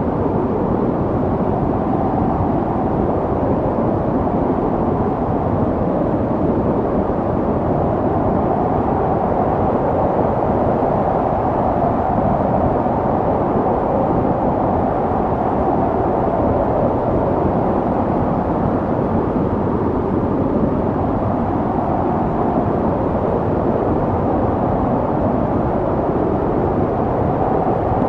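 Snowstorm wind blowing steadily, a dull, even rush with most of its weight in the low and middle range and no gusts or breaks.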